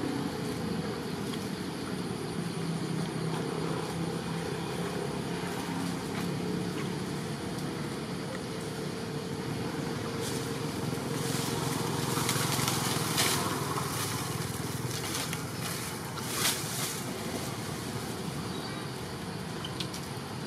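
Steady outdoor background noise with a low, even drone, and a cluster of short crackles and rustles about halfway through.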